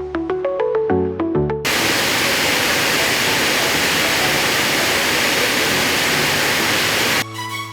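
Background music with plucked notes, cut off about a second and a half in by the steady, even rush of a waterfall, which stops abruptly after about five and a half seconds as the music returns.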